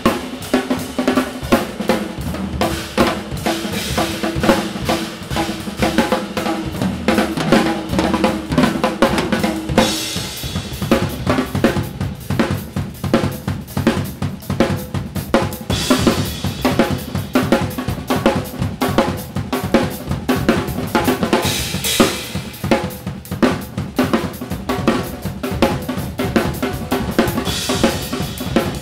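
Improvised drum kit playing: rapid snare, tom and bass drum strokes, with cymbal washes swelling every few seconds.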